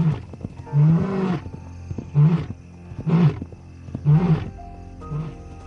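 Lion roaring: a run of deep grunting roars about a second apart, weaker over the last few.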